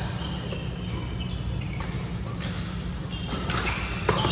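Badminton rally: a string of sharp racket hits on the shuttlecock and footfalls, with short shoe squeaks on the court mat, thickening toward the end, over a steady low hum in the hall.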